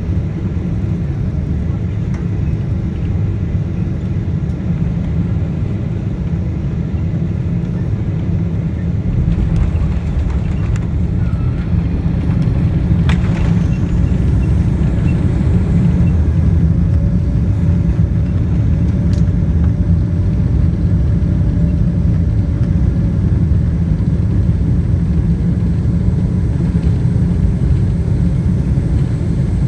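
Cabin noise of a Boeing 777-200ER landing: a steady low rumble of engines and airflow, then a heavier rumble from the wheels on the runway after touchdown, growing louder as the plane rolls out. A faint steady whine runs through the second half.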